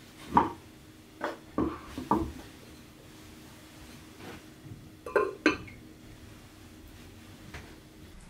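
Earthenware donabe pot and its ceramic lid clinking and knocking as they are handled and the lid is set on: a few sharp knocks in the first couple of seconds, then a close pair about five seconds in.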